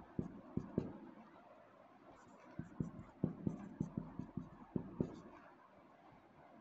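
Dry-erase marker writing on a whiteboard: faint, irregular short taps and strokes of the tip on the board, a few at first and a busier run about halfway through.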